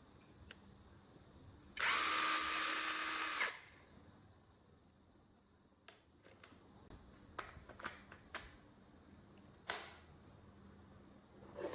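Brushless multi-tool motor body run briefly, a steady whine for about a second and a half, followed by a series of sharp clicks and knocks.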